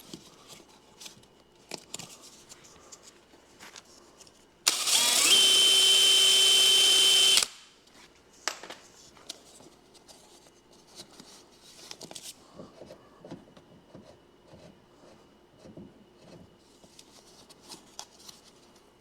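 Power drill with a step bit running steadily for about three seconds with a high whine, enlarging a drilled hole in a plastic bumper cover. Light handling clicks come before and after it.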